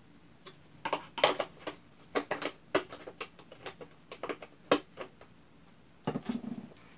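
Irregular clicks and crackles of a plastic liquid-detergent bottle being squeezed and handled while the detergent is poured into a plastic bottle of glue, then a knock as the detergent bottle is set down on the table near the end.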